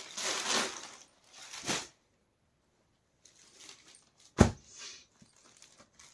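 Suit fabric rustling and crinkling as it is handled and unfolded, dying away after about two seconds; a single sharp thump a little past halfway, then faint rustles.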